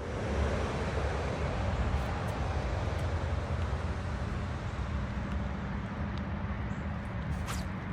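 Boat's outboard motor running steadily, with a low engine hum under a continuous rush of wind and water.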